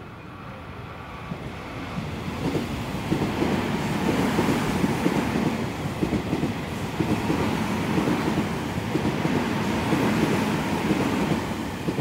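Electric commuter train passing through a station at speed without stopping: a rushing rumble of wheels on rail that builds over the first few seconds, stays loud, and begins to ease near the end.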